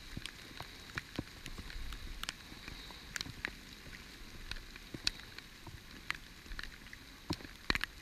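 Heavy rain pouring down, with scattered sharp taps of drops landing close by.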